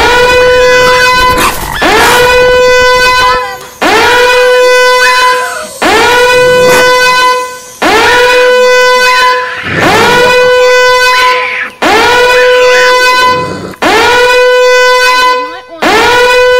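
Loud, blaring horn-like tone, one blast about every two seconds, each swooping up at the start and then holding one steady note, with fainter wavering cries beneath. It is an annoying noise played loud to drive raccoons out of an attic.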